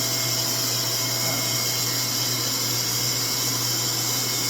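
RevAir reverse-air hair dryer running steadily, its motor pulling the hair into the tube by suction while blowing air: a constant low hum under a strong rush of air.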